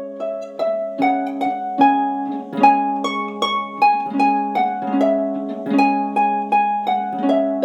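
Instrumental music on a plucked string instrument: a melody of ringing plucked notes played over a steady low drone note.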